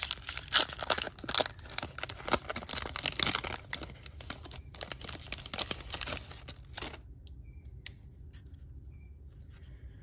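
Foil wrapper of a Topps Series 2 jumbo baseball card pack crinkling and tearing as it is ripped open by hand. The crinkling stops about seven seconds in, leaving only a few faint ticks of cards being handled.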